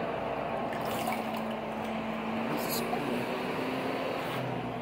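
Scrub sponge being dipped and wetted in a glass bowl of water: water sloshing and dripping, with a few short splashes.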